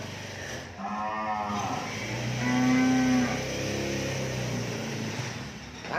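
Cattle mooing: two drawn-out calls, the second longer and louder.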